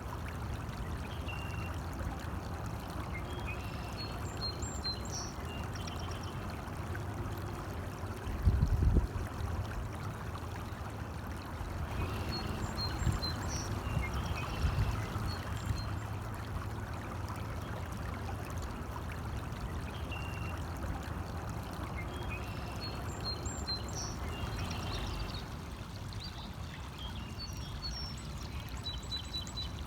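Small stream flowing steadily, with a few clusters of short, high bird chirps. A brief low rumble about eight seconds in is the loudest moment.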